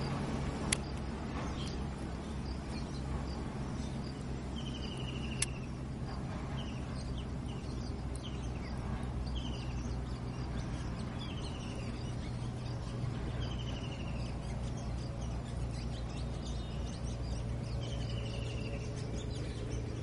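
A flock of rose-ringed parakeets calling: short, falling squawks every second or two over a steady low hum, with two sharp clicks, one about a second in and one about five seconds in.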